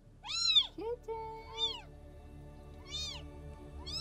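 A kitten trapped inside a wall meowing over and over: high-pitched calls that rise and fall, about one a second, with a fourth starting at the very end.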